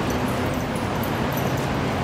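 Steady city traffic noise, an even low rumble with no distinct events.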